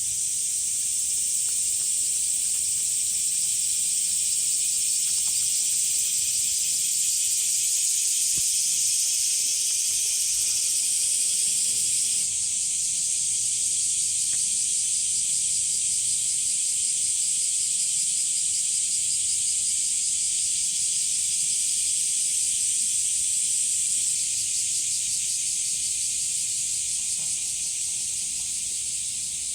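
Cicadas in full chorus: a loud, continuous, high-pitched buzzing hiss that holds steady and drops slightly in level near the end.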